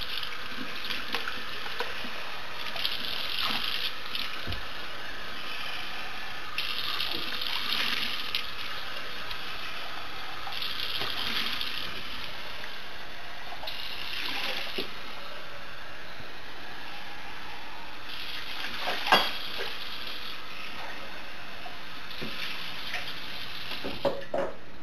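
Kitchen sink faucet running steadily while a cat is rinsed under it, the splashing swelling every few seconds as water is scooped and poured over him. One sharp knock a little past the middle.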